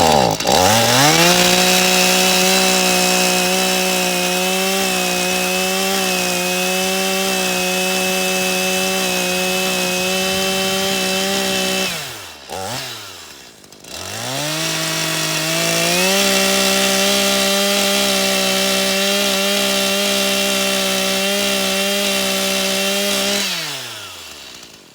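Stihl MS 182 C-BE two-stroke chainsaw, warmed up, run at full throttle and cutting wood in two long stretches. It revs up and holds a steady pitch for about eleven seconds, drops briefly toward idle, then revs again for about eight seconds. Near the end it winds down and goes quiet.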